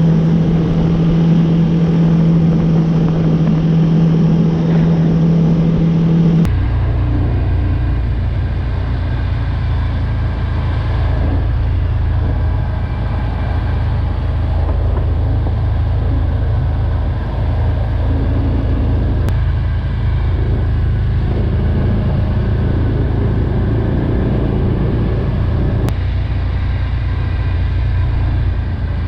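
ATV engine running steadily under way. A steady droning tone changes abruptly about six seconds in to a deeper, low rumble.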